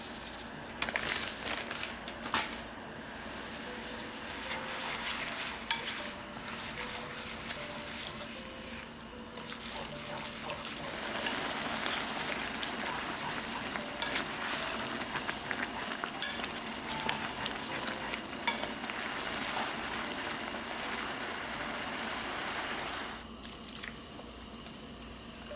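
Glass noodles (dangmyeon) sizzling and bubbling in a soy-sauce seasoning in a pan, tossed with wooden chopsticks that click and scrape against the pan. The sizzling is louder through the middle and drops off suddenly near the end.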